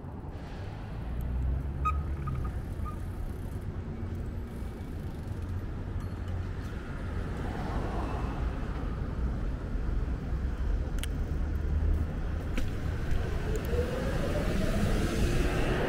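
City street traffic heard from a bicycle: motor vehicles running close by, a steady low engine rumble and road noise that grows louder. Near the end a vehicle's pitch rises in a whine as it speeds up.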